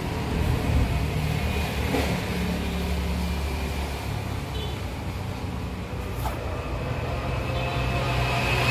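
A steady low engine-like hum that grows a little louder near the end, with a couple of light clicks about two and six seconds in.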